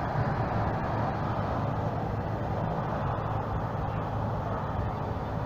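Steady low engine hum under an even hiss, with no sudden events.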